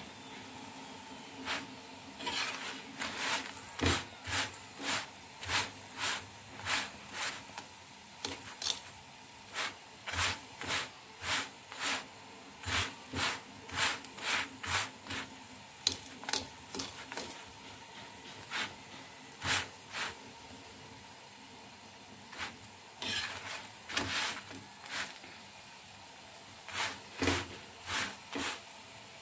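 Spatula scraping and pressing a paratha on a tawa: a long run of short rubbing scrapes, one or two a second, with a short pause in the middle.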